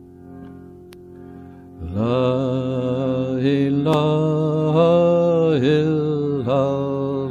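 A soft, steady drone, then about two seconds in a man's voice comes in loudly, chanting long held notes of Sufi zikr over it. The held notes dip briefly in pitch between phrases.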